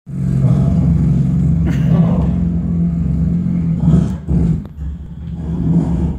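Two performers making a low, steady droning sound with their voices into handheld microphones, amplified through the theatre's sound system; about four seconds in the drone breaks into shorter, uneven pieces.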